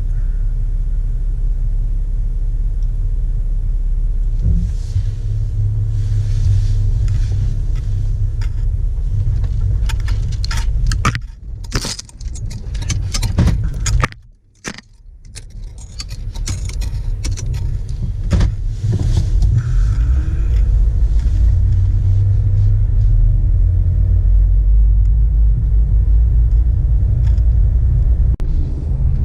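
Jeep Wrangler JK running with a steady low engine and vehicle rumble. Around the middle there is a cluster of rattles and clicks, and the rumble briefly falls away almost to nothing before it comes back.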